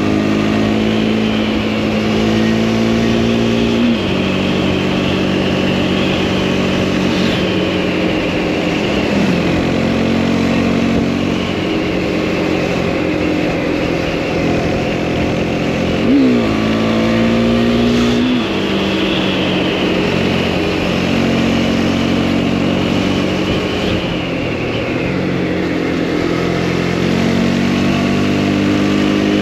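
Motorcycle engine, a Husqvarna Svartpilen 401 single, pulling along a mountain road. Its note steps through several gear changes, with a sharp rev rise about halfway through, over steady wind and road noise.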